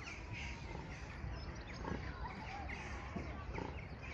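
Small birds chirping repeatedly over a steady low rumble of wind on the microphone.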